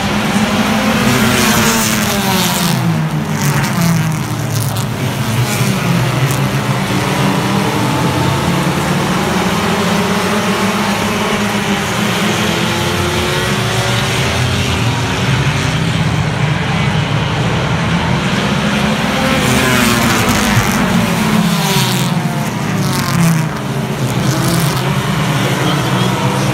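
A pack of compact-class race cars running hard around a short oval, many engines at once. Their pitch rises and falls as the field sweeps past, twice.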